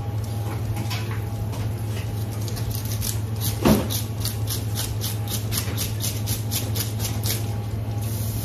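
Rapid scraping strokes, about four a second, of the scales being scraped off a large 5 kg wild sea bream, with one louder knock a little before halfway. A steady low hum runs underneath.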